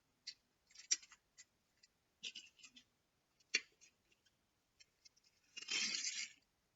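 Die-cast metal toy train engines and carriages being handled by hand: scattered small clicks and clacks, then a louder scraping rattle lasting under a second near the end.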